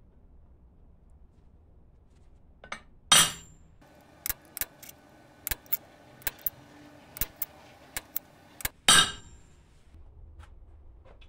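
Center punching hole marks in a steel plate: two loud ringing metal strikes about six seconds apart, with a run of sharp light metallic clicks between them.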